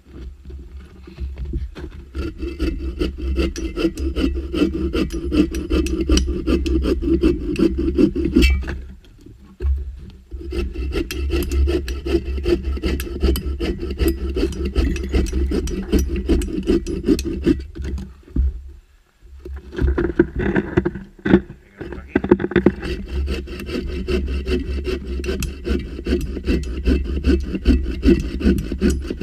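Sven folding bow saw cutting through a dead log in quick back-and-forth strokes, pausing briefly about nine and eighteen seconds in.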